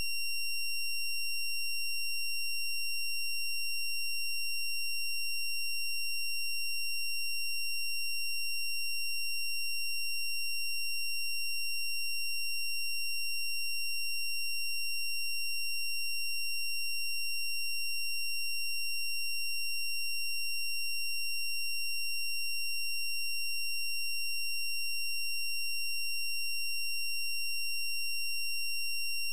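A steady, unchanging high-pitched electronic tone with a set of higher overtones above it, and a very faint low hum beneath.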